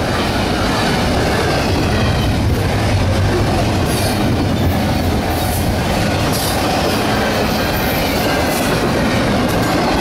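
Double-stack intermodal train's well cars rolling past close by: a steady rumble of steel wheels on the rails, with a faint wavering wheel squeal and a run of sharp clicks in the middle.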